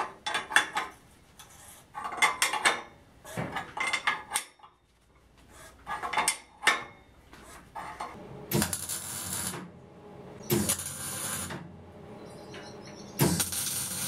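Steel parts clinking and rattling in quick clusters as they are handled and fitted. In the second half come three short bursts of electric welding crackle, about a second each: tack welds on steel square tube.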